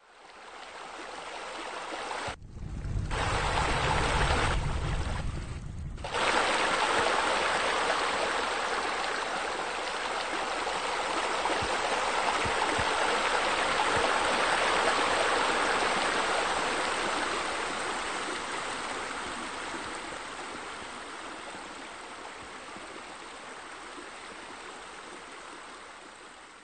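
Steady rush of running water, like fountain jets and a spillway splashing into a pool. It fades in at the start and out at the end, with a deeper rumble underneath for about four seconds, starting about two seconds in.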